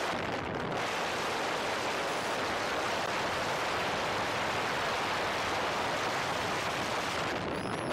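Steady rushing wind and tyre-on-road noise of a car driving at speed, picked up by a camera mounted on the outside of the car.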